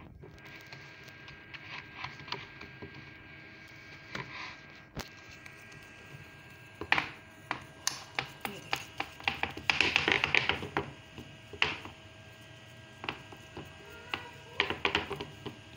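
Hands pressing and patting pizza dough out to the rim of a metal pan. Scattered sharp taps and clicks against the pan start about halfway through and come thickest in a quick cluster just after the middle.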